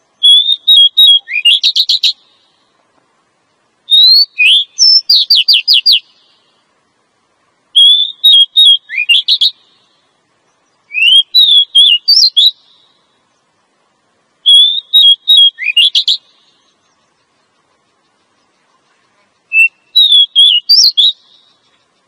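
Female oriental magpie-robin calling: six short phrases of sliding whistles and quick chattering notes, each about two seconds long, with short silences between them and a longer pause before the last. It is the female's call used to lure males.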